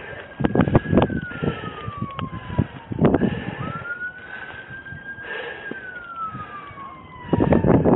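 An emergency vehicle's siren in a slow wail: it falls, rises again, holds and falls once more, over sharp knocks and rustles close to the microphone. A loud rushing noise on the microphone comes in near the end.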